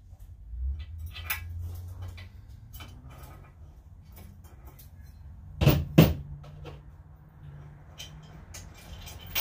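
Hard parts and tools being handled during assembly of a pressure washer: scattered clicks and clinks, with two loud knocks a quarter second apart a little past halfway.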